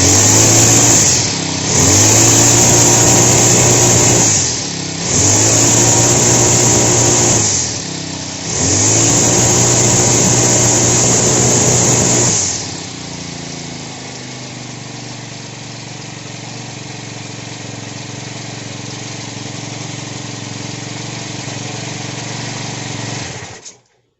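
Honda GX35 single-cylinder four-stroke brush cutter engine revved hard four times, each rev rising in pitch, then settling to a steady idle for about ten seconds before it stops abruptly near the end. It is running again after a fault that the owner puts down to the spark plug.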